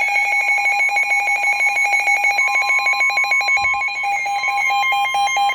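Emergency Alert System attention signal: a loud, steady electronic alarm tone with a fast even pulsing, joined by a second, higher tone a little over two seconds in.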